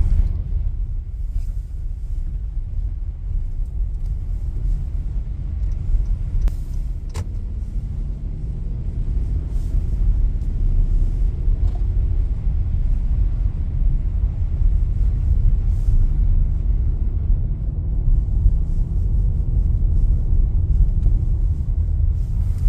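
Car driving: a steady low rumble of engine and road noise, growing a little louder after about eight seconds, with one brief click about seven seconds in.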